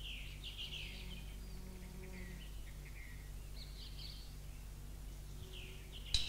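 Faint birds chirping in short twittering phrases over a steady low hum, with a sharp click near the end.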